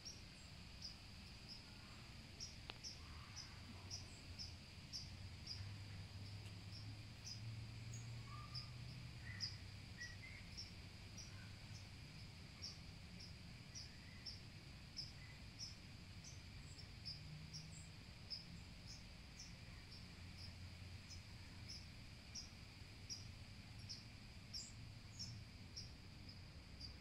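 Faint insect chorus: a steady high trill with short chirps repeating about twice a second, over a faint low rumble.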